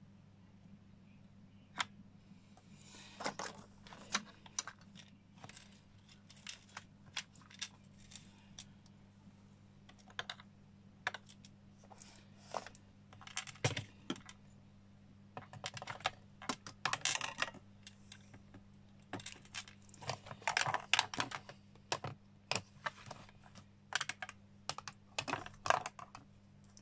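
Irregular small clicks, taps and rustles of small craft pieces being handled and set down on a work mat, some in quick clusters, over a steady low hum.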